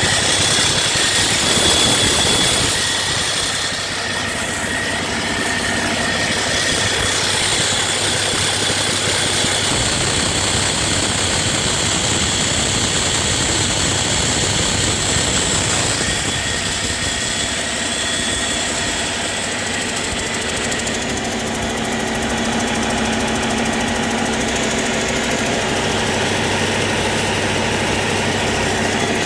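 2015 Cummins ISX15 15-litre inline-six diesel engine running steadily on a test run, loud and even throughout.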